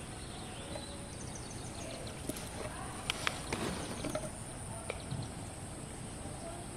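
Rural outdoor ambience: a steady high-pitched hiss with scattered short chirps, and a few sharp clicks about three seconds in and again near five seconds as a fish is taken off a hook over a plastic basin.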